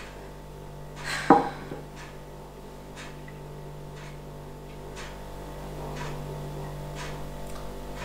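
A single short knock about a second in, over a steady low hum of room tone, with a few faint ticks.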